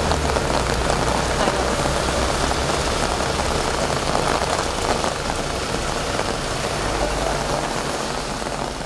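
Caterpillar 427F2 backhoe loader's diesel engine running at idle: a steady low hum under an even hiss, fading a little near the end.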